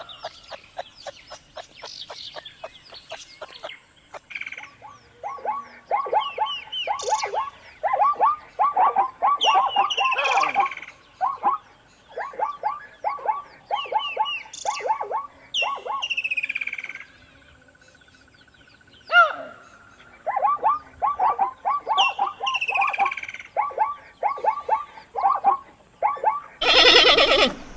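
Animal calls: trains of quick repeated chirping notes, broken by occasional higher descending whistles, with a brief lull partway through. A loud harsh call begins near the end.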